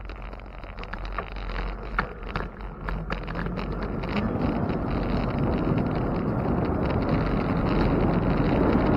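Wind buffeting the microphone on a moving bicycle, a low rumbling rush that grows steadily louder, with a scatter of short clicks and rattles in the first few seconds.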